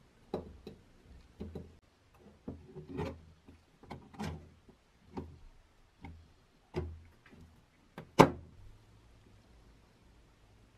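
Workshop handling sounds: a string of knocks and clicks as parts are handled and set down, the sharpest knock about eight seconds in.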